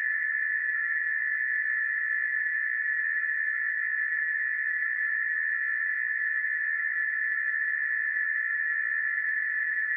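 Emergency alert alarm sounding as one continuous high-pitched tone, held steady without pulsing or changing pitch.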